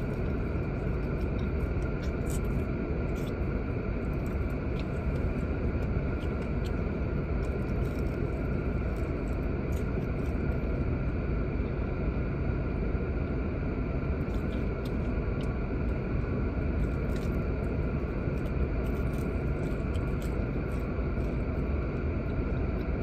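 Steady low rumble and hum inside an idling car, with faint scattered clicks from chewing and handling fried chicken and fries.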